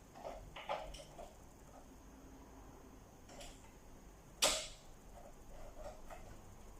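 Small clicks and knocks of plastic and metal parts being handled as an air conditioner unit is reassembled, with one sharper click about four and a half seconds in.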